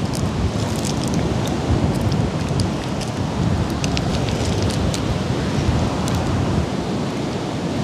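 Wind buffeting the microphone with rain, making a steady heavy low noise, with scattered sharp ticks throughout.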